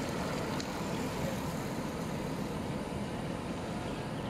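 Steady outdoor road noise: a low rumble with a hiss above it.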